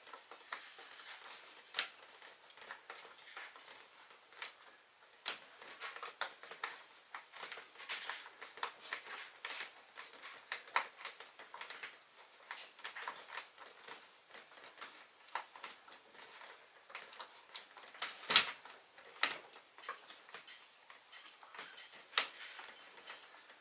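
Irregular light clicks, taps and knocks of camp chair parts being handled and fitted together during assembly, with one louder knock about 18 seconds in.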